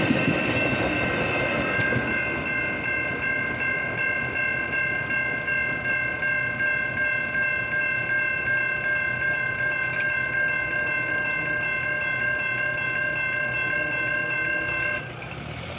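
Railroad grade-crossing bell ringing in fast, even strokes, while the last cars of a Metra commuter train rumble past and fade over the first couple of seconds. The bell cuts off suddenly about fifteen seconds in, as the gates rise to clear the crossing.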